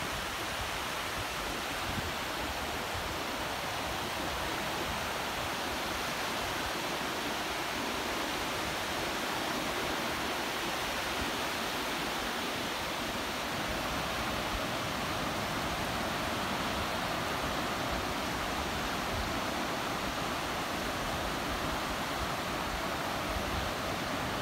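Small sea waves breaking and washing up a flat sandy shore: a steady rush of surf.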